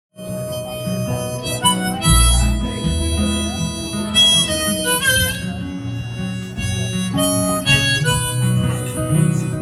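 Harmonica leading the instrumental intro of a country-folk song, over a band backing with bass notes coming in about two seconds in.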